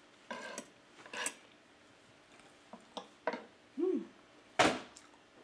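Spoon and fork scraping and tapping against a wooden plate while cutting a vegetable pancake, as a string of short noises and small clicks. There is a brief hummed mouth sound just before four seconds and a louder burst of noise near the end.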